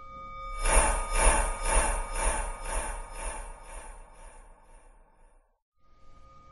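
Jingling sound effect shaken in a steady beat, about two shakes a second, over a faint steady tone; it fades out, and after a brief gap starts over near the end.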